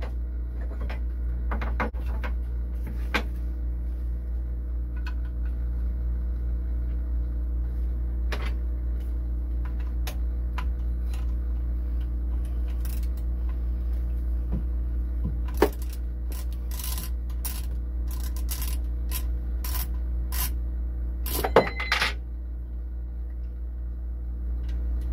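Metal clinks and clicks of a wrench working the nut on the back of the alternator's mounting bolt. They come scattered at first, then as a quick run of sharp clicks past the middle, with the two loudest knocks near the end. A steady low hum runs underneath.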